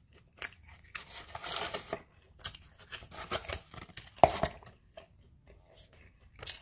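Eating and food-handling noises: rustling and crinkling while a sandwich is handled, with scattered clicks and one sharp knock a little past four seconds in.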